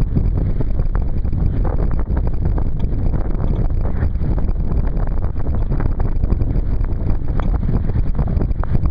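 Wind buffeting the microphone in a steady low rumble, over the rush and irregular slapping of lake water against the hull of a Sunfish sailboat heeled under sail.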